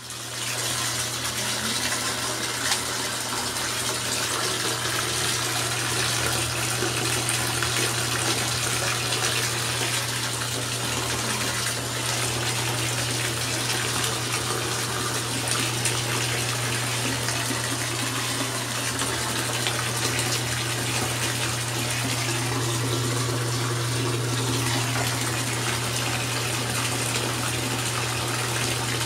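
Superior Pump 91014 1/4 HP submersible thermoplastic utility pump running in shallow bathtub water: a steady low motor hum under continuous rushing, churning water.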